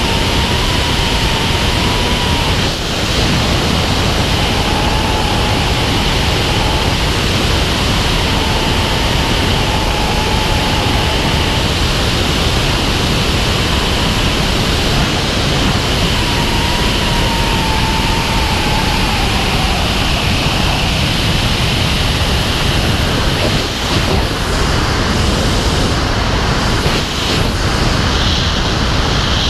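Loud, steady rush of wind from a wingsuit in freefall, blowing over the helmet camera's microphone. A faint wavering whistle comes and goes through the first two-thirds.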